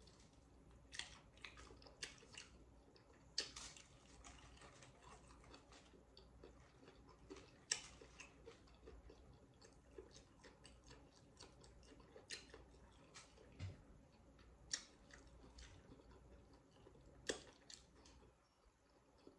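Close-up chewing and crunching of tortilla-chip nachos: scattered sharp crunches and clicks about every second or two over a quiet background.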